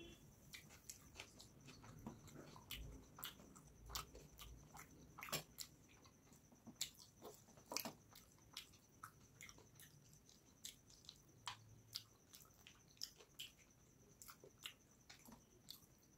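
Faint, irregular small clicks and wet squishes of fingers mixing rice and fish curry on a steel plate.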